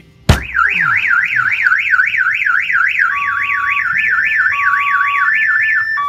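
A hand knocks once on a truck window, and the aftermarket Excalibur car alarm's siren starts at once, warbling rapidly up and down about four times a second. The shock sensor has picked up the knock and triggered the alarm.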